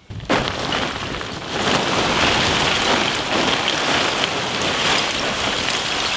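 Lumps of charcoal poured from sacks onto a charcoal pile: a dense, rattling clatter that starts suddenly and gets louder about a second and a half in.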